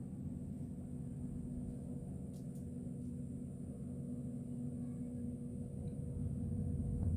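Low, steady rumble of a distant SpaceX Falcon 9 rocket's first-stage engines climbing after launch, growing louder near the end.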